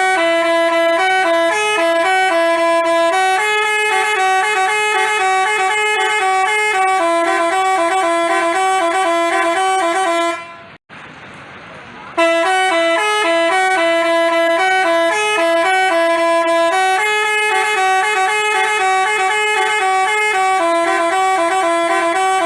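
Basuri telolet bus horn playing a multi-note melody, loud and continuous. It breaks off about ten seconds in and starts the tune again about two seconds later.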